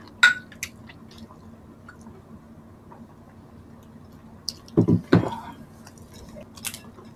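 Two heavy glass mugs clinked together once in a toast, a sharp ringing clink about a quarter second in, followed by faint small clicks of glassware and a brief louder low sound of drinking about five seconds in.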